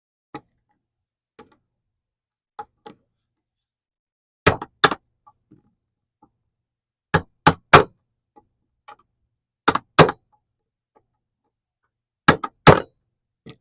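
Narex corner chisel being struck to square the router-rounded corner of a mortise: a few light taps, then loud sharp strikes in groups of two or three about every two and a half seconds.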